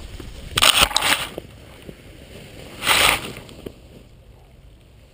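Grass rustling and scraping against the housing of a towed action camera as it is dragged over a meadow and settles. There are two loud bursts of about half a second each, just under a second in and again around three seconds, then it goes quieter.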